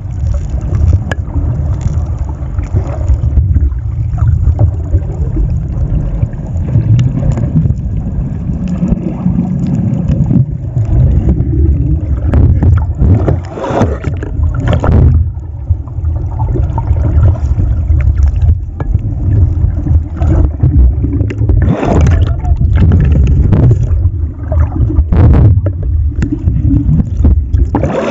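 Muffled rumble and sloshing of churning seawater, heard through an action camera's waterproof housing dipped below the surface beside a fishing net being hauled, with scattered knocks and splashes.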